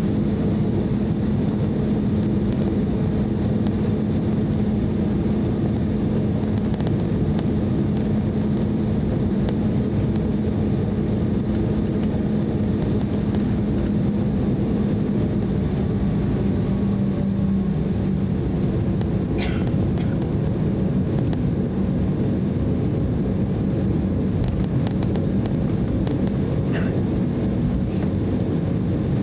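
Inside the cabin of an Embraer E190 taxiing: its two GE CF34-10E turbofan engines run at taxi power as a steady hum with a constant low drone. A brief sharp click comes about two-thirds of the way through, and a fainter one near the end.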